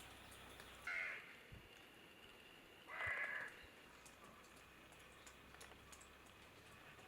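A crow cawing twice, a short caw about a second in and a longer one about three seconds in, over faint room tone.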